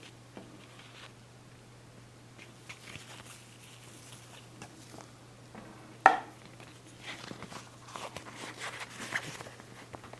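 Unboxing handling noises: small clicks and taps of the packaging and speaker being handled, a sharp knock about six seconds in, then crinkling and rustling of packaging over a steady low hum.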